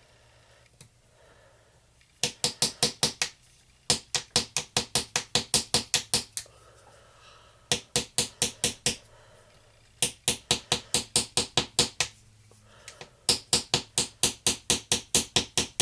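Small hammer rapidly tapping on a plaster treasure-dig block to chip it away, about six sharp strikes a second, in five runs with short pauses between.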